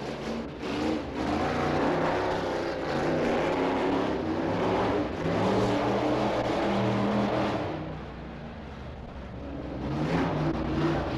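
BriSCA Formula 1 stock car engine revving hard as the car laps the oval on its time trial, its pitch rising and falling with each burst of throttle. It eases off a little past the middle and builds again near the end.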